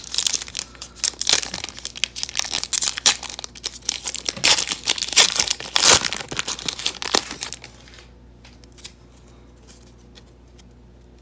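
Foil trading-card pack wrapper crinkling and tearing as it is ripped open, a dense crackling for about seven and a half seconds. Then it goes quiet but for a few faint ticks as the cards are handled.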